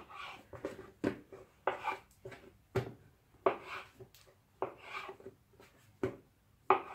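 Kitchen knife cutting through soft yeast dough and knocking on a wooden board, short sharp knocks about once a second with soft rubbing as the dough pieces are pulled apart and moved.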